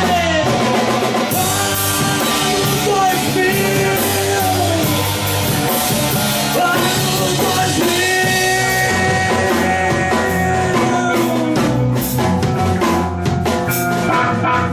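Rock band playing: distorted guitars over a steady drum-kit beat, with held melodic lines and no words.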